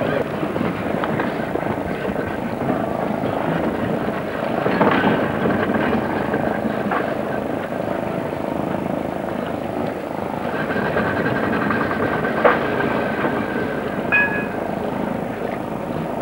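Yacht's inboard engine running steadily while the boat lies against the quay, with a single sharp knock about twelve and a half seconds in.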